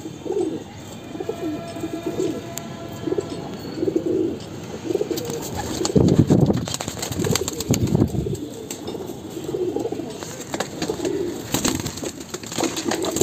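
Pigeons cooing over and over, low and rounded, with a few louder coos about halfway through. Near the end a pigeon flaps its wings as it takes off, heard as a quick run of sharp wing claps.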